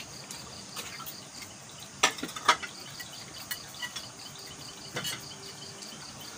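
Night insects chirping in a steady, evenly pulsing high trill, with scattered sharp clicks and clinks from eating at a table. The two loudest clicks come about two seconds in, half a second apart.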